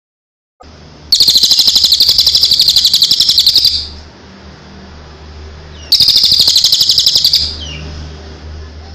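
Songbird singing two loud, fast trills of rapidly repeated notes, about a dozen notes a second, the first about two and a half seconds long and the second about a second and a half, over a low steady hum.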